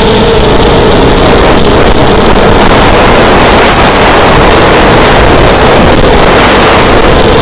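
FPV racing quadcopter's electric motors and propellers running at speed, a loud, steady buzz with wind rushing over the onboard microphone.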